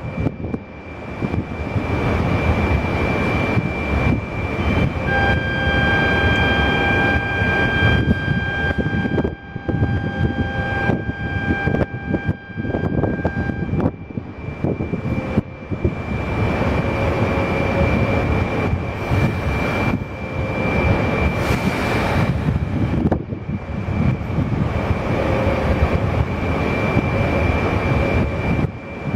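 200 series Shinkansen standing at the platform with its equipment running: a steady rushing drone with a thin high whine on top. From about five seconds in to about fourteen, several steady high tones sound together, then stop.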